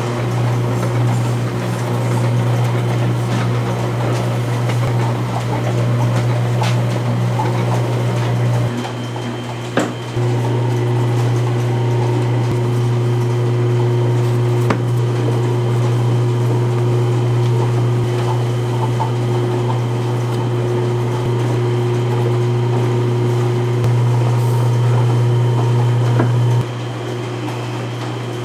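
Steady hum of a running electric motor, with a few clicks. It dips briefly about nine seconds in, picks up again, and drops in level near the end.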